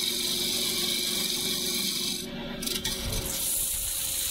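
Wood lathe turning a maple handle: a steady scraping hiss of a tool working the spinning wood over the hum of the lathe, which breaks off about two seconds in. It is followed by a parting tool cutting into the end of the handle.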